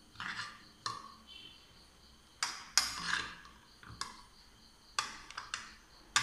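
Steel serving spoons clinking and scraping against plates and bowls as rice and salad are dished up: a series of sharp clinks, some with a short metallic ring.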